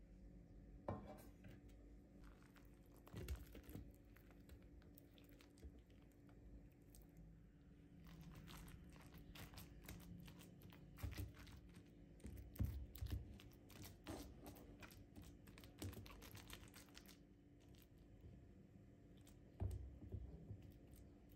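Silicone spatula pressing and spreading soft bread cubes across a metal plate: quiet, irregular soft crunching and scraping, with a few light knocks against the plate.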